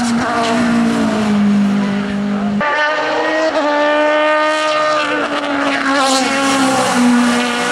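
Sport-prototype race car engines running at high revs, heard one car after another, the sound switching abruptly to a second car about two and a half seconds in. The engine pitch holds high and then drops in steps as the cars change gear.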